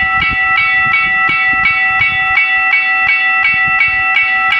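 Italian level crossing warning bell ringing in rapid, evenly spaced strikes, about three a second, each with a lingering ring, while the crossing's barrier arms are going up.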